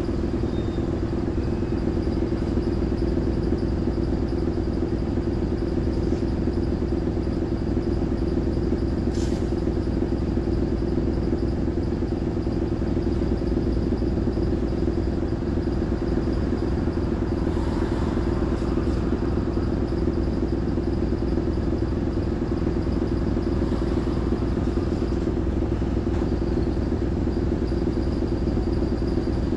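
Optare Solo M920 single-deck bus's diesel engine idling steadily while the bus stands still, heard from inside the saloon as an even, low hum.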